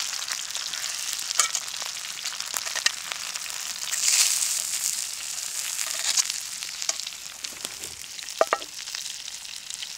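Food sizzling in a hot pan, a steady frying hiss with scattered pops that swells about four seconds in. A brief squeak near the end.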